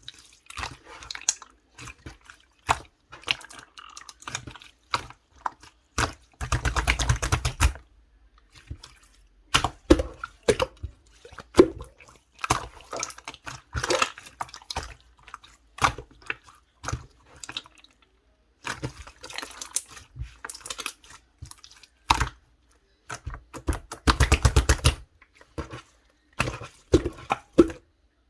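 Clear slime with cherry-blossom toppings being squished and pressed by hand: wet, sticky clicks and small pops at an irregular pace, with two longer runs of rapid crackling, about six seconds in and again near the end, as air pockets burst.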